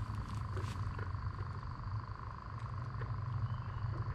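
Steady evening chorus of calling frogs and insects over a low, steady hum, with a few faint clicks.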